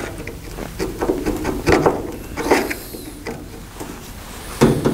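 A hand tool turning a screw out of the rusty steel door: short metal scraping and grinding strokes about once a second. The screw comes out easily, since the lock area has been oiled.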